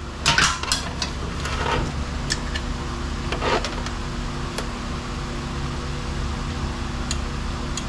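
A few light clicks and taps as an oil pressure gauge line fitting is handled and threaded by hand into the engine block, over a steady machine hum.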